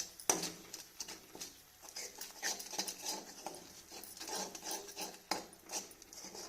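Spoon stirring and scraping a sticky ginger and jaggery paste in a pan: irregular scrapes, with a sharper knock just after the start and another about five seconds in.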